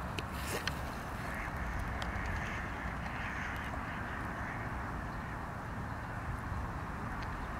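Birds calling over a steady background noise.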